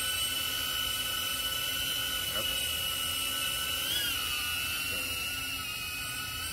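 DJI Avata FPV drone's ducted propellers whining steadily in flight. About four seconds in the pitch briefly rises and falls as the motors speed up.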